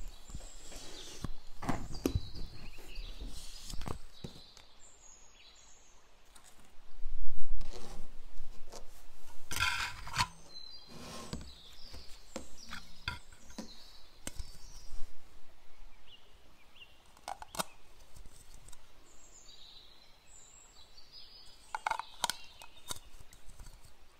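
Kitchen handling sounds: scattered taps and knocks. A spatula scrapes soft cream-cheese filling into a piping bag, then clear plastic dessert cups are picked up and handled.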